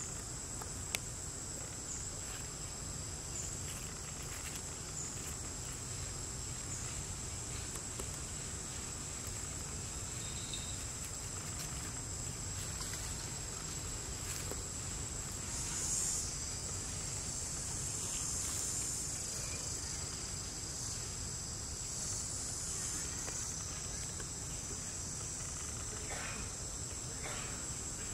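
Steady high-pitched drone of insects in the forest, swelling louder about halfway through, with a single sharp click about a second in.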